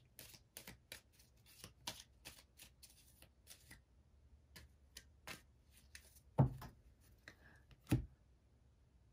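A deck of oracle cards being shuffled by hand: a quick run of light card snaps, about three a second, then slower ones, with two louder knocks about a second and a half apart near the end.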